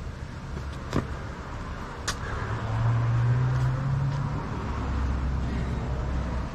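A passing motor vehicle's low engine hum that swells about two and a half seconds in and drops lower in pitch about halfway through. Two sharp knocks come before it, about one and two seconds in, from burpees on the asphalt.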